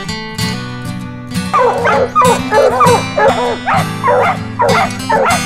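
Bear hounds baying over acoustic guitar music. The guitar plays alone at first, and the hounds' repeated bawls come in about a second and a half in, in quick bunches.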